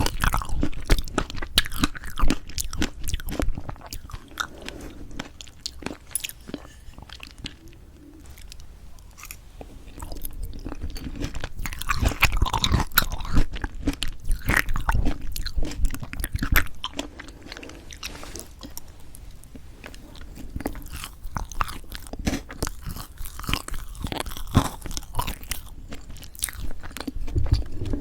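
Close-miked chewing of strawberry chocolate cream cake: a dense run of wet mouth clicks, smacks and soft crunches, louder in the first few seconds and again for a stretch in the middle.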